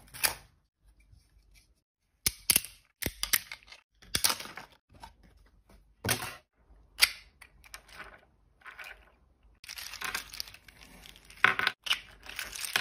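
A 3D-printed plastic articulated figure being handled, making scattered sharp clicks and cracks as it is peeled off the printer's build sheet and its jointed limbs and head are bent. About ten seconds in comes a denser run of rustling and clicking.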